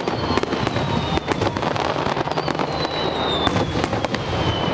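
Fireworks display: a dense run of sharp bangs and crackles over a continuous low rumble. Twice, a high whistling tone glides slowly down in pitch.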